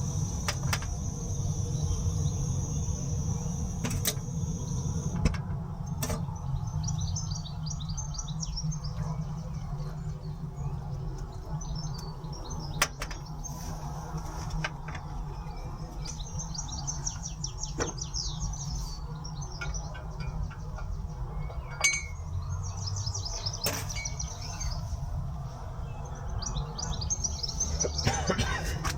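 Small birds singing: several short bursts of rapid high chirps a few seconds apart, over a steady low rumble, with a steady high tone in the first few seconds and a few sharp clicks.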